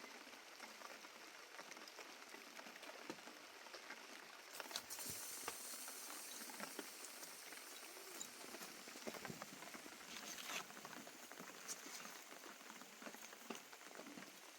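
Faint, steady patter of rain, made up of many small drop ticks.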